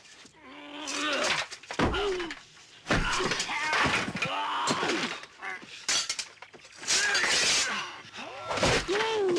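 Steel swords clanging together again and again in a sword fight, some blows ringing on. Between the blows come the fighters' grunts and yells.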